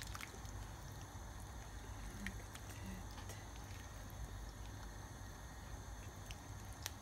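Faint sound of a pot of chicken soup simmering over a steady low hum, with a few soft clicks of kitchen tongs moving noodles and chicken in the pot.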